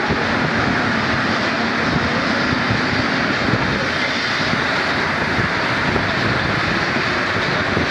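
Paris Métro MP 59 rubber-tyred train running at speed through a tunnel, heard from on board: a steady, loud roar of tyres and running gear.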